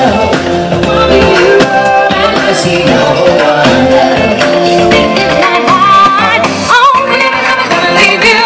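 Live band playing with a singer: sung vocals over acoustic guitar, keyboard and drums, with a steady beat.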